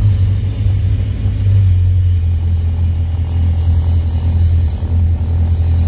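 Skid steer engine running just after a cold start, heard from inside the cab as a steady low rumble that settles and strengthens about two seconds in.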